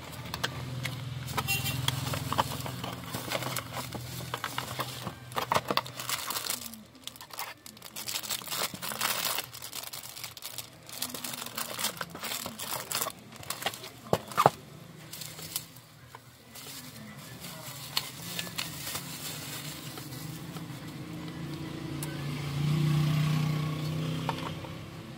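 Clear plastic wrapping and bubble wrap crinkling and crackling in irregular bursts as they are handled, with knocks from a cardboard box. A low steady hum swells for a couple of seconds near the end.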